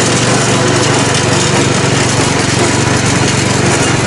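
Small lawn-mower engine of a homemade lawn-tractor go-kart, running steadily under load as the kart is driven.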